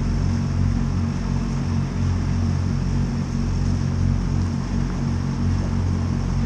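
Steady low mechanical hum made of several pitched tones, pulsing slightly and running without a break, from machinery at a steam locomotive on a turntable.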